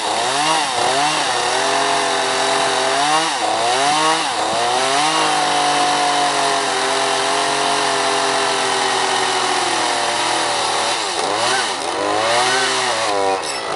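Chainsaw carving wood: the two-stroke saw revs up and down in short bursts, is held at a steady high speed for about five seconds in the middle, then revs up and down again.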